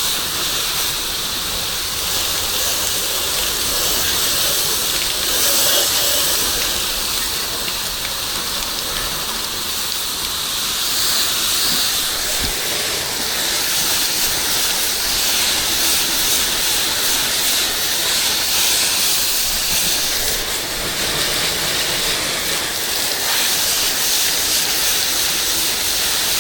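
Pressure washer spraying water from the wand in a steady hiss, washing buildup off the house exterior.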